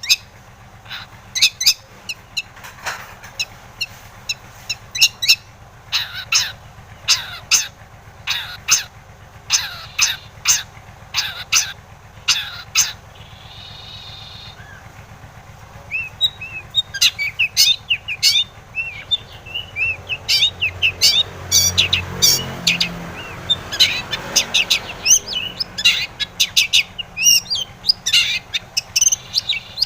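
Long-tailed shrike (cendet) singing: a long run of short, sharp, high calls, more crowded and chattering in the second half, over a steady low hum.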